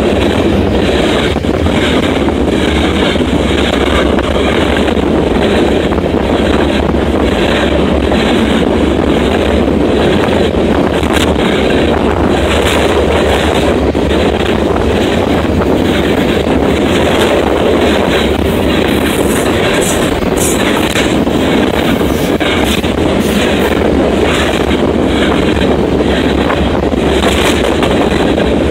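Freight train of covered hopper cars rolling past: steel wheels on rail, a loud steady rumble with a continual run of sharp clicks.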